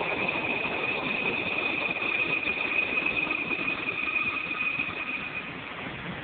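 Running noise of a rapid-transit train heard from inside the car: a steady rumble with a high steady whine that fades out about five seconds in.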